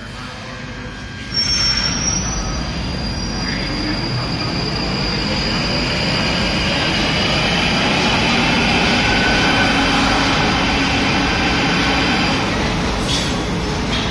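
London Underground Northern line 1995-stock train pulling out of the platform. About a second in there is a sudden jump in noise with a high squeal, then loud running noise from motors, wheels and rails that builds as the train gathers speed.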